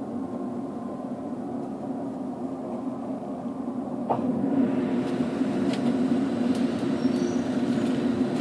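Toronto subway train running with a steady hum. About four seconds in a clack is heard, and after it the running noise grows louder, with scattered rail clicks.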